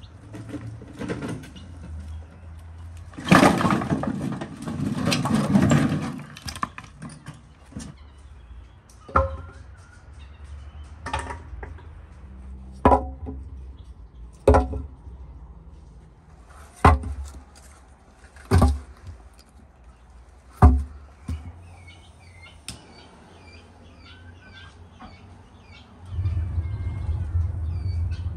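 Firewood logs dropped one at a time into a clay tandoor: about seven hard wooden knocks, roughly two seconds apart, after a longer clatter of wood being handled early on. Small birds chirp, and near the end a low steady rumble of the wood fire burning in the tandoor takes over.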